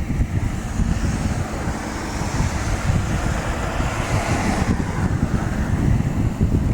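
Freight train of Taki 1000 tank wagons hauled by an EH200 electric locomotive passing through a station without stopping: a loud, steady rumble of wheels on rails, with wind buffeting the microphone.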